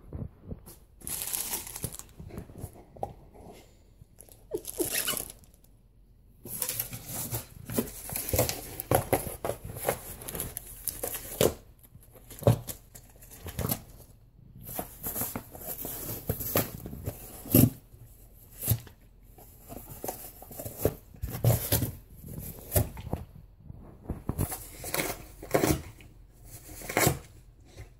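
Alaskan Malamute tearing and chewing a cardboard box, ripping off pieces in short, irregular rips and crackles.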